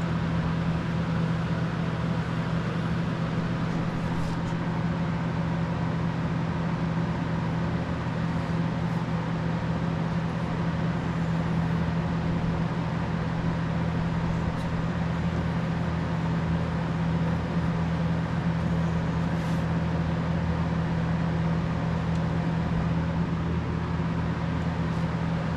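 Steady mechanical drone with a strong low hum, unchanging throughout, with a few faint ticks.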